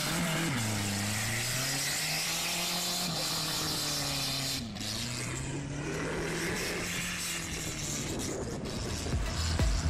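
Dune buggy's naturally aspirated Volkswagen AP four-cylinder engine revving as the buggy runs on the sand, its pitch falling and rising with the throttle. A steady rushing noise runs underneath.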